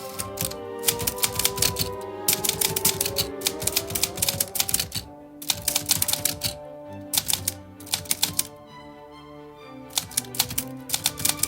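Typewriter keys striking in quick runs of clicks with short pauses between them, over background music.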